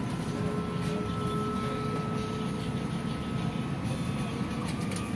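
Interior running noise of an Alstom Citadis Dualis tram-train under way: a steady low rumble with a faint steady whine above it.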